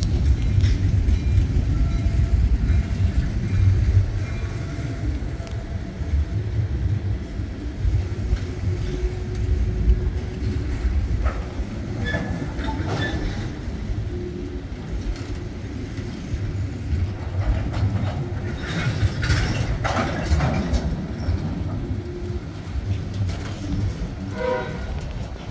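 Loaded Herzog ballast hopper cars of a freight train rolling past close by: a steady low rumble with wheel and coupler clatter and a few short, high squeaks, a cluster of them near the end.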